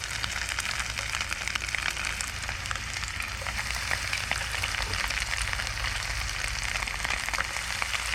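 Bluegill tails frying in hot oil: a steady sizzle with many small crackling pops.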